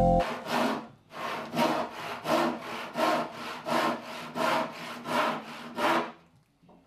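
Handsaw cutting through a piece of kitchen worktop: a steady run of back-and-forth strokes, about three a second, stopping about six seconds in.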